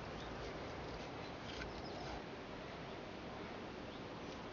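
Faint outdoor background hiss with short, high chirps of small birds scattered through it.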